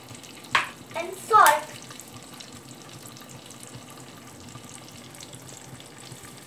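Popcorn kernels and spices frying in melted butter and oil in an aluminium pot, a faint steady sizzle, before any kernels have popped.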